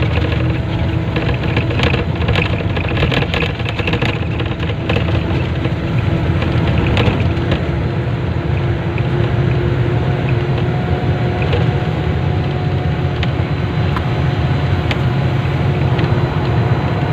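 Steady low engine rumble of a vehicle on the move, with a faint constant hum above it and a few light clicks in the first few seconds.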